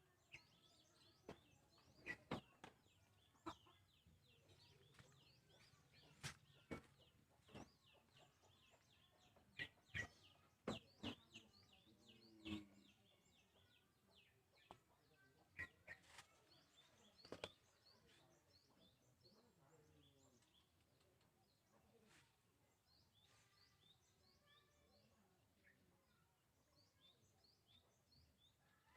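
Faint, scattered clicks and taps, about twenty over the stretch, with small birds chirping faintly in the background.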